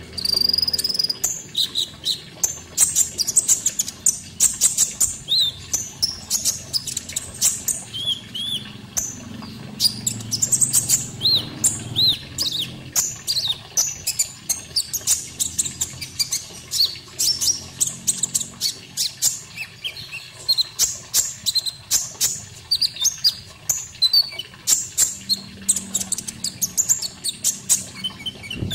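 A konin songbird singing a fast, unbroken stream of high, sharp chirps and twittering notes, with a faint low murmur of running water underneath.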